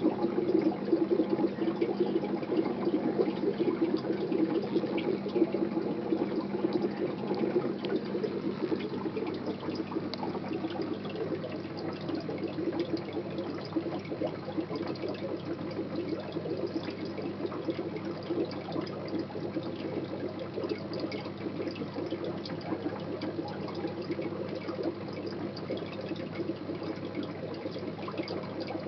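Air-driven aquarium sponge filters bubbling: a steady burble of air and water, a little louder in the first several seconds.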